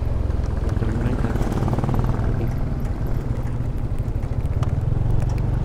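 Yamaha Aerox 155 scooter on the move, its single-cylinder engine running steadily under a heavy, even low rumble.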